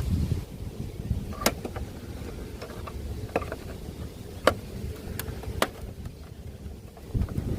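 Small mechanical clicks and clatter from a cassette player's mechanism being worked on, a few sharp clicks standing out over a low rumble.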